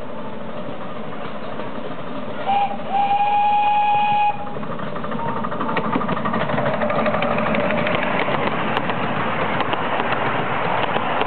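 Miniature steam locomotive's whistle, blown twice: a short toot, then a longer steady single-note blast. Then the locomotive and its passenger carriages pass close by with a rapid rhythmic clatter that gets louder.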